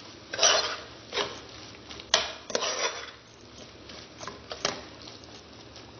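A utensil stirring thick gizzard gravy in a metal cooking pot: irregular scrapes against the pot, with a sharp knock on the rim about two seconds in.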